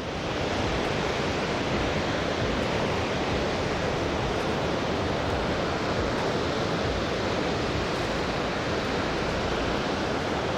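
Steady, loud rush of a large waterfall pouring into its pool.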